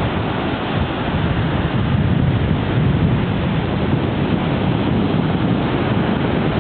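Mediterranean Sea waves washing, mixed with wind buffeting the microphone: a steady rushing noise, heaviest in the low end.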